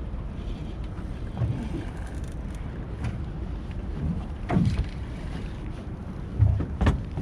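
Wind buffeting the microphone over the steady rumble of water around a small fishing boat, with a few sharp slaps or knocks against the hull.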